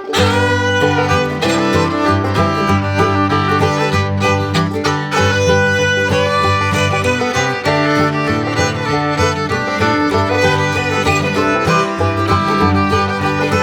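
Background music: an upbeat bluegrass-style tune with fiddle over guitar and a steady bass.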